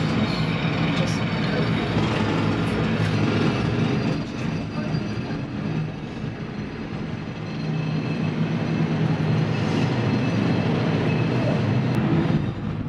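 Ride noise inside a Medellín Metrocable gondola cabin: a steady rumble and rattle as the cabin runs along its cable line. It eases briefly a few seconds in and drops just before the end.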